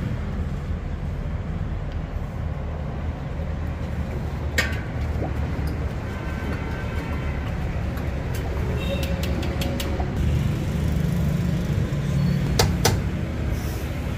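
A steel ladle clinking a few times against a large steel pot of chickpea curry and a china plate as portions are served, with two clinks close together near the end, over a steady low rumble.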